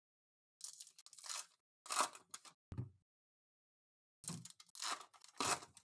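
Trading card pack wrappers crinkling and tearing and cards being handled, in several short bursts, with a soft thump on the table about three seconds in.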